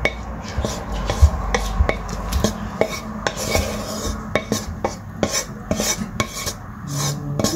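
Utensil scraping and knocking against a frying pan as stir-fried pak choi and minced meat is tipped out into a glass bowl: a run of irregular clicks and scrapes, a few each second.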